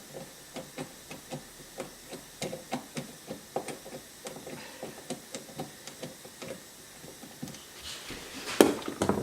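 Screwdriver working on a dishwasher's plastic parts: a run of light clicks, about three or four a second, then a louder clatter near the end.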